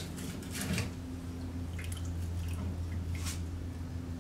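A whole smoked turkey being lifted off an electric smoker's rack with a carving fork and spatula: a few faint, wet ticks of the meat and dripping juices, scattered over a steady low hum.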